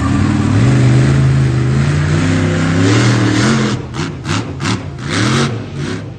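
Monster truck engine revving: held high for a few seconds, then blipped up and down about four times in quick succession near the end.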